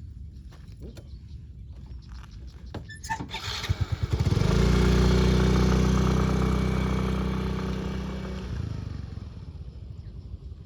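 A small engine, clattering about three and a half seconds in, then running at a steady pitch for about four seconds before fading away.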